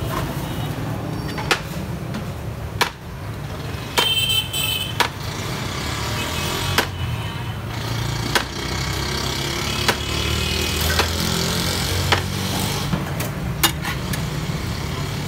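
A perforated metal skimmer scoops rice in a large metal cooking pot and knocks against the pot, making sharp clanks every second or two. Under it runs a steady rumble of street traffic.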